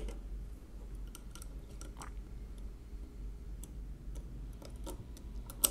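Faint, scattered small clicks and ticks of a steel pick and hook tool against the metal parts of a 1920s Monroe mechanical calculator while a spring is worked into place, with one sharper click near the end.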